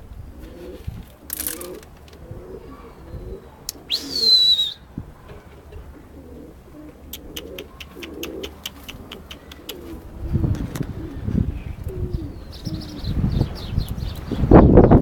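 Domestic pigeons cooing over and over, with a brief high call about four seconds in and a run of quick ticks a few seconds later. Low fluttering thumps, like wings flapping, build over the last few seconds and peak loudly near the end.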